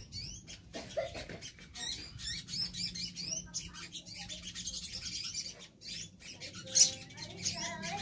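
Several caged brown-throated sunbirds (sogon) calling together: a dense mix of high, quick chirps and short twittering trills, overlapping. A sudden loud, sharp sound stands out near the seven-second mark.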